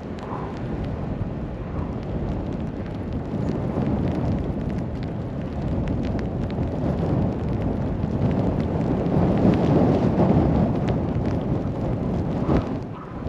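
Wind gusting against the microphone in a snowstorm, a dense low rumble that swells louder around two-thirds of the way through.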